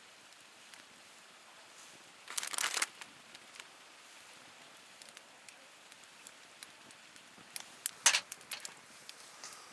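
Wood fire crackling with scattered sharp pops, with two short bursts of crinkling, rustling noise about two and a half and eight seconds in.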